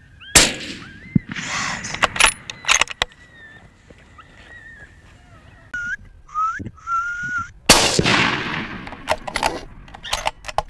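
Two loud rifle shots, one about half a second in and one near eight seconds in, each with a long echoing tail. Sharper, shorter cracks and knocks come between and after them. Three short whistles, the first two rising, sound just before the second shot.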